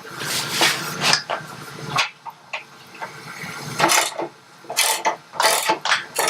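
Irregular scraping, rubbing and knocking of metal parts being shifted and worked by hand during rear wheel and axle fitting on a motorcycle.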